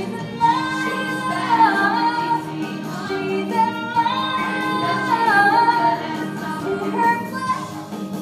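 Female voices singing a show tune over instrumental accompaniment, a sustained melody with slides between notes.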